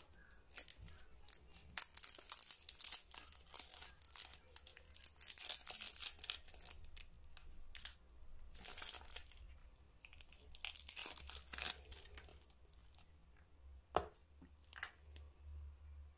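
Shiny twist wrapper of a mini Galaxy Caramel chocolate crinkling and tearing as gloved fingers unwrap it, in irregular rustles that thin out after about twelve seconds. A single sharp click comes about fourteen seconds in.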